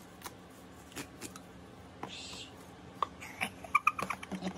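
Wrapping and packaging being handled and cut with scissors: scattered light clicks, a brief rustle about two seconds in, and a few short high squeaks and clicks near the end.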